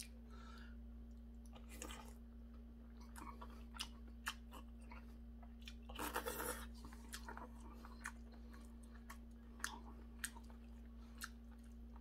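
Close mouth sounds of a man chewing spoonfuls of seonji gukbap (ox-blood soup with rice and bean sprouts): soft, scattered wet clicks, with a longer, louder burst about six seconds in as the spoon goes into his mouth. A steady low hum lies underneath.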